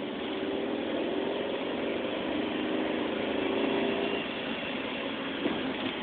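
Car engine and road noise heard from inside the cabin while driving. The engine note builds steadily, then eases off about four seconds in, with a brief knock near the end.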